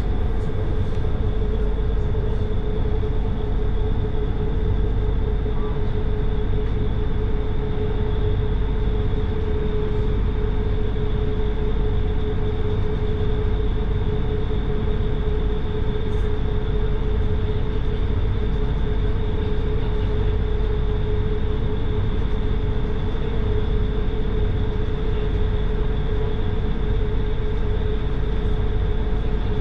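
Steady drone of a passenger ferry's diesel engines under way, heard on board: a constant hum over a heavy low rumble, with the rush of water and wind.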